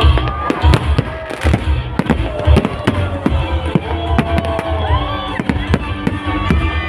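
Fireworks display going off: a rapid, continuous string of bangs and crackles with heavy low thumps, and music playing underneath.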